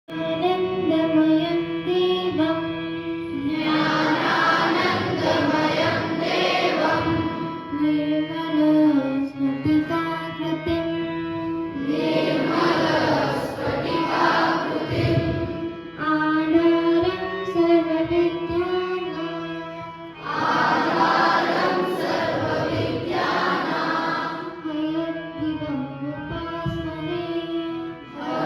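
A song with a group of voices singing over instrumental backing, starting abruptly out of silence and playing on throughout.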